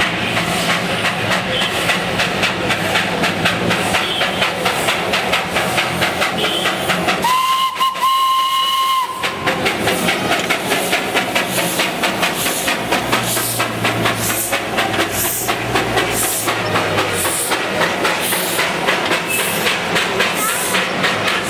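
Darjeeling Himalayan Railway 0-4-0 saddle-tank steam locomotive working, its exhaust beating rapidly and evenly. About seven seconds in, its whistle sounds two short blasts on one steady note.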